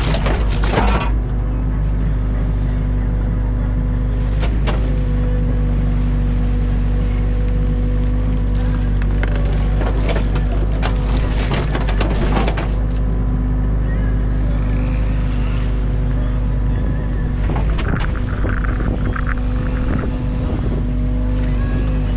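Excavator's diesel engine running steadily, heard from the operator's cab, with intermittent clunks and scraping as the bucket digs into and dumps wet mud and sticks.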